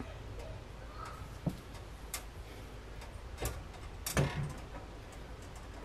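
Eggs cooking in a small nonstick frying pan: a faint, quiet sizzle with a few scattered ticks and pops, the loudest about four seconds in.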